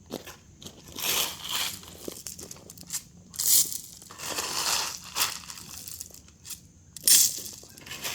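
Loose gravel and dirt being scooped and dumped, in several separate crunching bursts.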